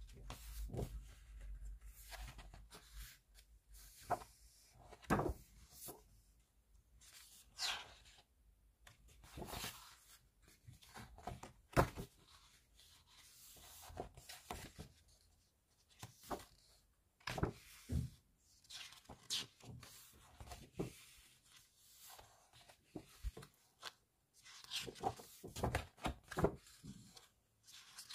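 Heavy glossy pages of a photobook being turned by hand: irregular paper swishes and rustles every second or two, with a sharper page flip about twelve seconds in.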